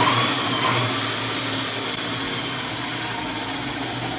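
Stock 24 V brushed electric motor of a Razor Ground Force go kart running steadily at speed, spinning the rear drive unloaded on a stand. It is over-volted on a 52 V battery through a 36 V controller.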